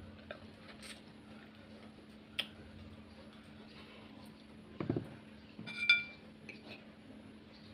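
A metal fork clinks against a ceramic plate with a short ringing tone about six seconds in, just after a dull knock. A few faint clicks come earlier, over a steady low hum.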